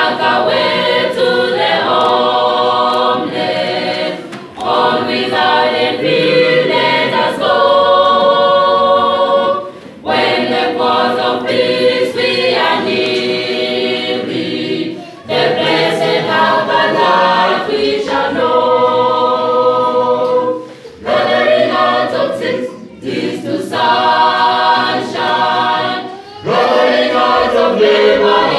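Mixed choir of men's and women's voices singing a cappella in harmony, in phrases broken by short pauses for breath.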